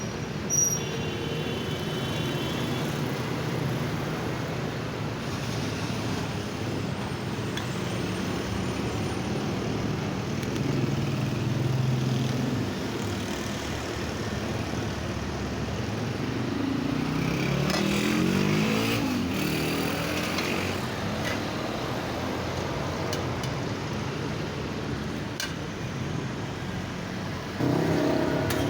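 Steady street traffic noise, with a motor vehicle's engine rising in pitch as it accelerates past about two-thirds of the way in.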